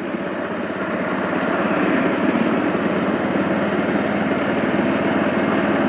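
Bajaj Avenger single-cylinder motorcycle running on the move, its engine and road noise steady, growing a little louder over the first couple of seconds.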